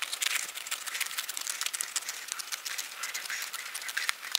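Small scissors snipping through gasket paper to cut out a homemade gasket: a quick run of small crisp snips with crinkling of the paper.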